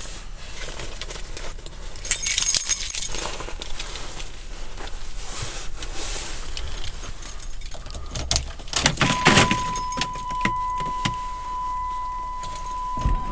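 Car keys jangling and rustling as they are handled in the ignition; about nine seconds in, the car's electronic warning chime starts as a single steady tone and holds.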